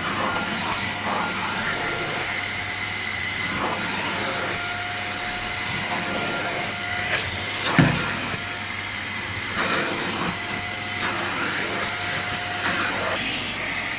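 Vacuum cleaner running steadily, its hose nozzle drawn over a coarse doormat, with a faint whine that comes and goes. A single thump a little past halfway.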